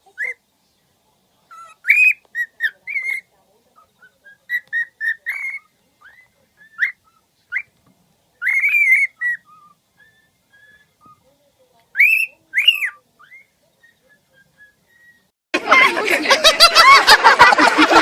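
A pet bird whistling in short, bright rising-and-falling notes, in quick bouts separated by pauses. Near the end a loud, dense chatter of many overlapping pitches cuts in suddenly.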